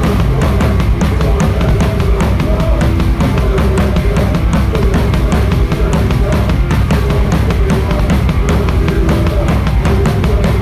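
A hardcore band playing live at full volume: a drum kit hitting a fast, steady beat with crashing cymbals under distorted guitar and bass riffs.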